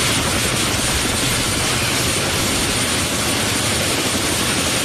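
Mil Mi-8-type twin-turbine helicopter running on the ground: a steady, loud mix of turbine whine and rotor noise that does not change.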